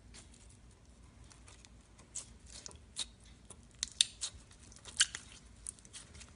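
Slime being squished and pressed by hand, giving irregular sticky clicks and small pops, with two sharper pops about four and five seconds in.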